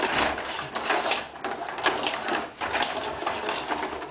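Rod table hockey game in fast play: a busy clatter of rods sliding and twisting in the frame and plastic players clacking against the puck and the boards.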